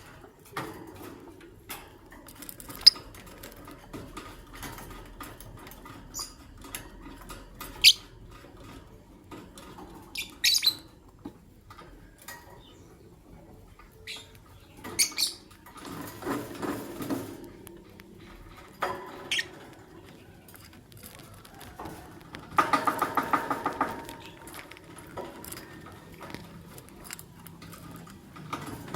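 Masked and albino lovebirds giving scattered sharp, high chirps a few seconds apart, with scratchy rustling. About two-thirds of the way through there is a short buzzy chatter of rapid pulses, about eight a second.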